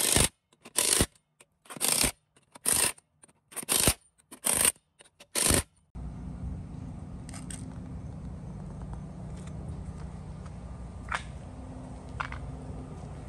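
Cordless impact wrench run in short bursts, about seven in six seconds, running the lug nuts onto a Jeep wheel. Then the sound cuts suddenly to a steady low background rumble with a few faint clicks.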